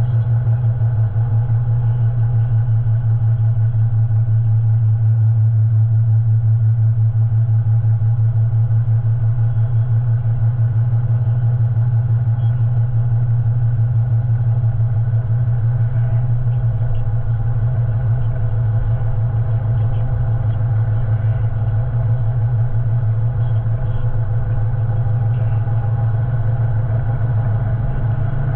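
Steady low engine drone and road noise from a vehicle cruising at constant speed, heard from inside.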